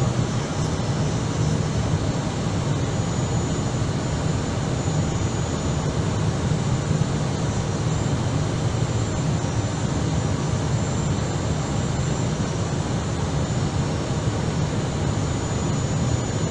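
Airbus A319 flight deck on final approach in landing configuration with flaps full: a steady low rush of airflow and engine noise. A thin high whine comes and goes above it.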